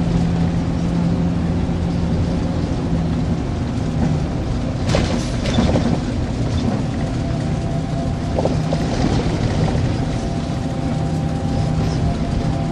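Steady low engine drone with a humming tone, heard from inside a moving vehicle. A few light knocks come midway.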